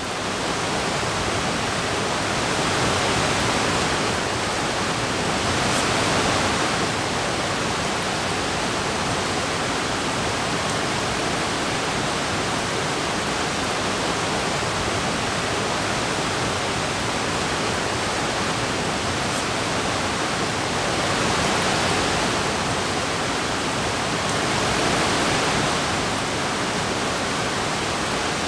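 Steady rain, an even hiss that swells a little a few times.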